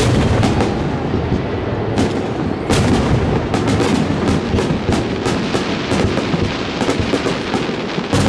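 Aerial firework shells bursting in quick succession: a dense run of overlapping booms and sharp cracks with low rumbling between them.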